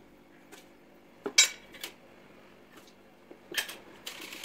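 Small stainless steel cups clinking and knocking against a stainless steel mixing bowl as ingredients are tipped in: a few sharp clinks, the loudest about a second and a half in, and a half-second clatter near the end.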